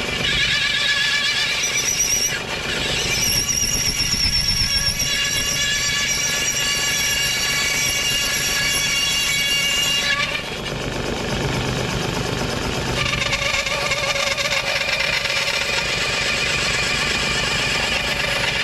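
Homemade metal-cutting bandsaw running and cutting through metal stock, the blade squealing with wavering high-pitched tones over the steady running of the motor and gearbox. The squeal changes in pitch and strength a few times as the cut goes on.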